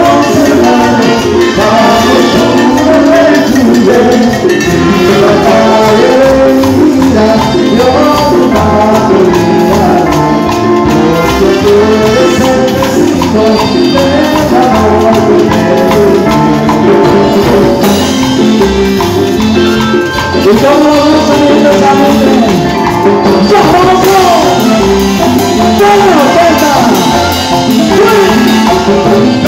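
A live dance orchestra playing loud, amplified music, with drums, cymbals, trumpet and keyboard.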